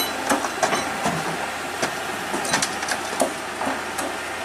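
Excavator working, its engine running steadily under irregular knocks and clanks, about a dozen sharp strikes in a few seconds, as the bucket and tracks work through dirt and rock.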